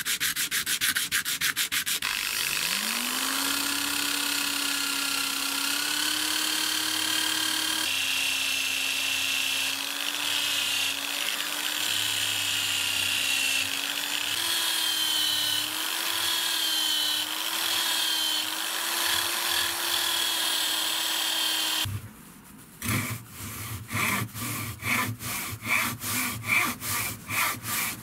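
Quick hand strokes of a steel blade on sandpaper, then a small electric rotary tool spins up about two seconds in and runs steadily for about twenty seconds, its pitch shifting slightly as it grinds a brass knife guard. Near the end it stops, and a fine-toothed hacksaw blade starts cutting a hardwood handle block in rapid, regular strokes.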